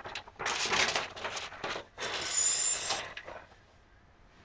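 A large sheet of drawing paper rustling and crinkling as it is handled and moved, in two spells of about a second each; the second ends about three seconds in.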